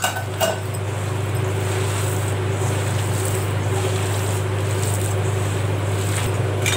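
A steady low mechanical hum, with soft sounds of hands mashing soaked flattened rice in a steel bowl. A light clink comes about half a second in.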